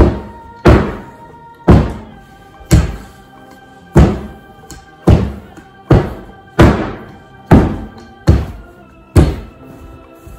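Heavy marble rolling pin thudding down onto a sheet of dough on a stone countertop, about once a second at an uneven pace, with faint background music underneath.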